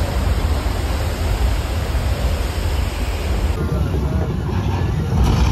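Wind rushing over the action camera's microphone with a steady low rumble from a moving open-air studio-tour tram.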